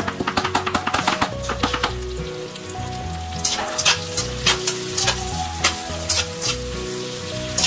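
Zucchini and scrambled egg sizzling in a frying pan. A quick run of small clicks in the first two seconds as salt is shaken in, then a slotted spatula scrapes and tosses the food in separate strokes about every half second.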